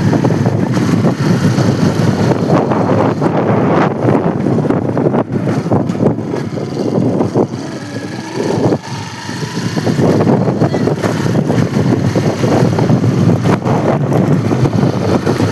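Motorcycle riding along: engine running under wind buffeting the microphone, easing briefly about halfway through.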